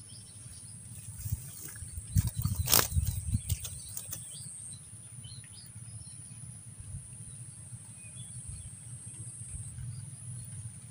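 Outdoor ambience: a steady high-pitched hum with scattered small bird chirps, and a few clicks and knocks about two to four seconds in.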